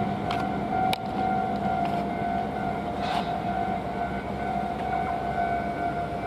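Japanese level-crossing alarm ringing its repeating electronic bell tone, with the rumble of a passing train fading at the start and a few sharp wheel clicks in the first second.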